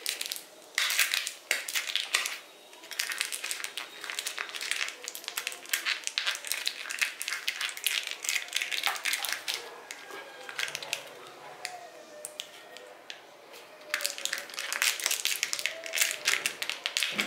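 Plastic toy wrapper crinkling and crackling in runs under fingers that are struggling to tear it open, with short pauses between the runs.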